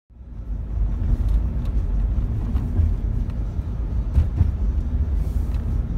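Road noise inside a moving Toyota Prius: a steady low rumble of tyres and cabin, fading in over the first half second.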